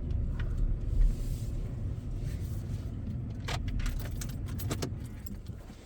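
Steady low road rumble inside a moving car's cabin, with a few light clicks and jingles about halfway through, like keys swinging.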